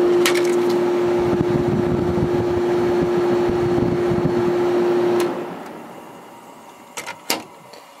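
Vintage Whirlpool 6,000 BTU window air conditioner running, its Seegar rotary compressor giving a loud steady hum over the fan's airflow. About five seconds in, the hum stops and the fan noise dies away as the unit shuts off. Two sharp clicks follow near the end.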